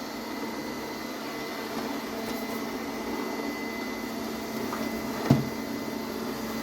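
Philco PAS19B robot vacuum cleaner running steadily, its suction fan and brush motor giving an even hum with a faint steady whine. A single sharp knock sounds about five seconds in.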